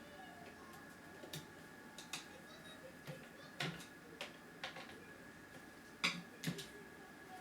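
Irregular light clicks and taps of a Lenovo T520 laptop being put back together, its screws and plastic parts handled, with the two loudest clicks about six seconds in.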